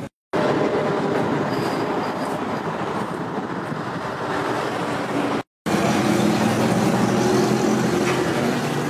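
Steady rushing mechanical noise with a faint low hum, typical of the electric air blower on a smith's charcoal forge. It cuts out briefly right at the start and again about five and a half seconds in.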